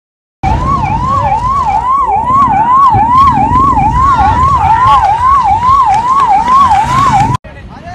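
Emergency vehicle siren, its pitch sweeping rapidly up and down about twice a second over a steady background rumble. It starts after a brief silence and cuts off suddenly near the end.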